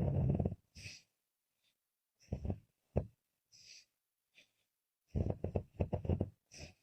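A woman snoring: three loud, rattling snores, the last a long rapid flutter, each followed by a short hissing breath. Laboured breathing that sounds like a struggle for air.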